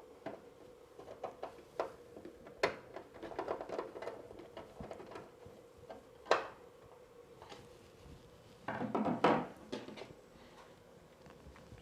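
A Phillips screwdriver driving the lid screws back into a CCTV recorder's case, with the handling of the unit: scattered small clicks and ticks, two sharper knocks, and a short burst of clatter near the end.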